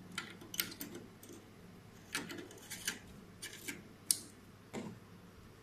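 Small metal-and-plastic clicks and scrapes of a GPON class C+ SFP optical module being handled and pushed into a port cage on an OLT PON card, about ten light clicks with the sharpest one about four seconds in as the module seats.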